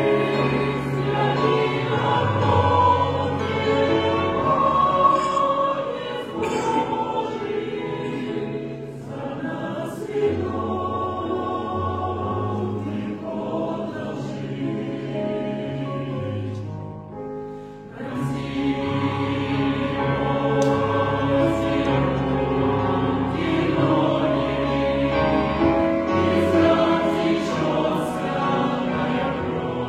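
A choir singing held chords, with a brief lull a little past halfway.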